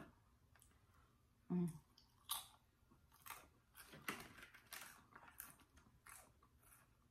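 Quiet, scattered wet clicks and crunches of a person chewing taco food, with a brief hummed vocal sound about one and a half seconds in.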